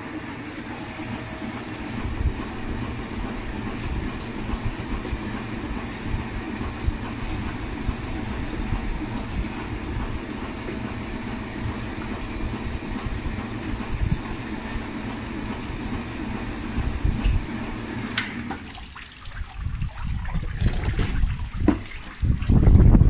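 Fish cutting machine running, with water washing over its trays: a steady mechanical rumble and rush of water. About three-quarters of the way through, the steady sound drops away, leaving uneven low knocks and thumps that are loudest near the end.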